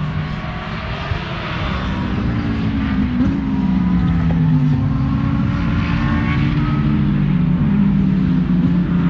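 Race car engines running, their pitch gliding up and down as they rev, getting louder over the first few seconds.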